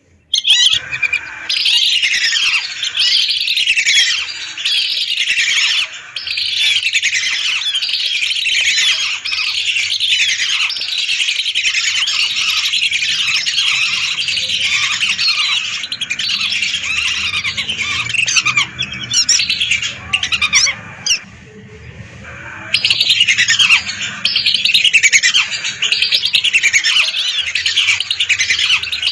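A large flock of whistling ducks calling all at once, a dense chorus of many overlapping high whistled calls. The chorus thins out briefly about two-thirds of the way through, then comes back as full as before.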